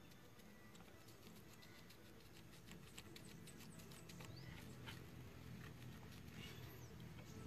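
Near silence: low room tone with faint scattered clicks and a few short, high chirps that slide in pitch.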